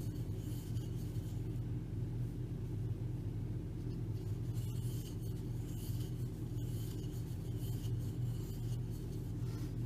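Faint rustling and rubbing of yarn drawn through loops on a crochet hook, in short swishes every second or so, over a steady low hum.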